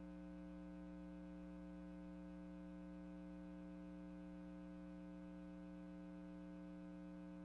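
Faint, steady electrical mains hum with nothing else over it.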